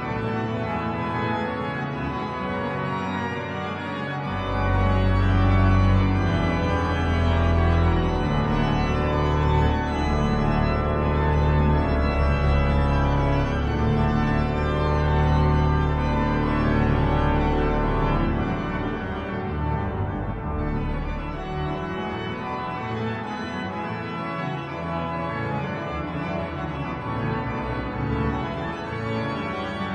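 Organ music played on a three-manual organ with pedals: sustained chords over several parts. Deep pedal bass notes come in about four seconds in and drop out a little past halfway, making that stretch fuller and louder.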